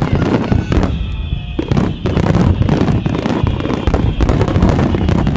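Fireworks exploding in rapid, overlapping succession: a continuous barrage of booms and crackling with no break.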